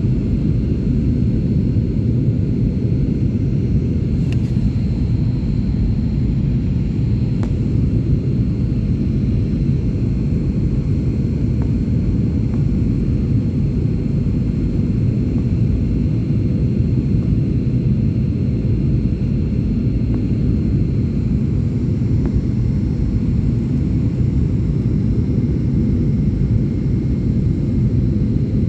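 Steady low rumble of an airliner's engines and airflow, with a faint steady high whine over it.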